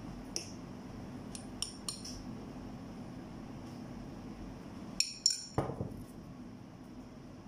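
Light clinks of a cut-glass dish and a thin utensil, a few in the first two seconds. About five seconds in come a couple of sharper clinks and a knock, as the glass dish is set down. A low steady hum runs underneath.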